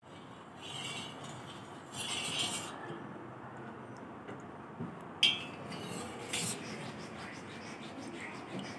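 Metal spoon stirring and scraping liquid in a stainless steel vessel, with a sharp clink of the spoon against the rim about five seconds in.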